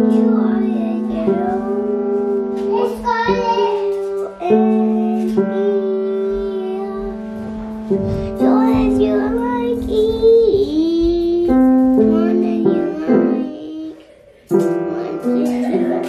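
A toddler pressing grand piano keys a note or two at a time, each note ringing on, while a young child sings along in a high voice that slides up and down. The playing and singing pause briefly near the end.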